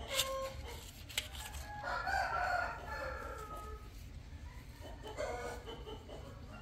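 A rooster crowing: one long call about two seconds in and a shorter call about five seconds in, with a couple of sharp clicks near the start.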